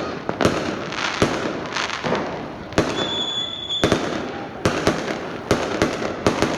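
Fireworks going off: a rapid, irregular run of loud bangs over a continuous crackle, with a brief steady high tone about three seconds in.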